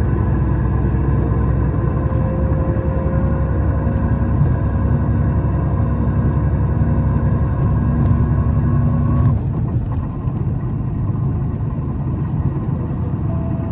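Isuzu Erga diesel city bus heard from inside the cabin while driving, the engine and drivetrain running with a steady whine that rises slightly in pitch. About nine seconds in the whine cuts off and the sound drops, as when the driver shifts or lifts off. This bus is one singled out for an abnormal running noise.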